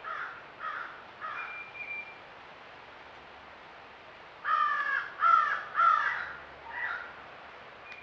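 A crow cawing: a few fainter caws, then after a pause three loud caws about half a second apart and one last fainter caw.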